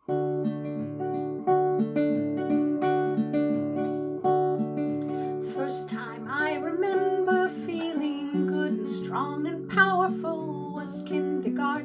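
Acoustic guitar playing a picked-chord song intro, and about halfway through a voice starts singing over it.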